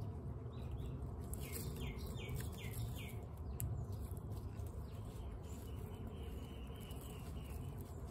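Guinea pigs crunching dry pellets from metal bowls in many small, quick clicks. A bird gives a run of about five short high chirps about two seconds in, and a faint steady high trill follows in the second half.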